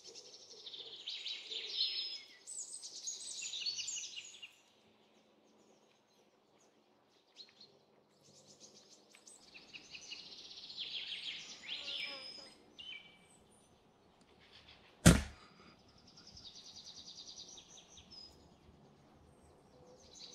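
Small birds chirping and trilling, with a short near-silent gap early on. About three-quarters of the way through comes a single sharp shot from a .177 Brocock Bantam Sniper HR air rifle.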